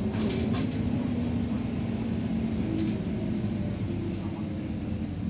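Irisbus Citelis 12 m city bus driving, heard from inside the passenger cabin: a steady engine drone over road rumble, its pitch drifting slightly.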